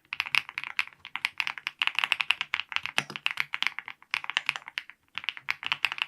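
Fast typing on a custom mechanical keyboard: a dense, rapid run of key clicks, broken by a few brief pauses.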